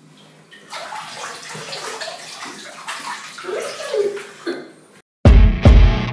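Water splashing and sloshing for about five seconds, swelling and fading, with a few short pitch glides near the end. Loud music with heavy bass beats then cuts in abruptly.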